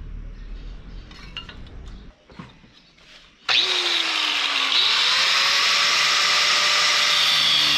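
A handheld power tool starts up about halfway through and runs loudly and steadily, its pitch sliding and then settling as it spins up. Before it, there is a low hum and a few faint clicks.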